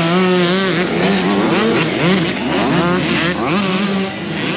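Several small youth motocross bikes revving on a dirt track, their engine notes rising and falling and overlapping as the riders throttle on and off.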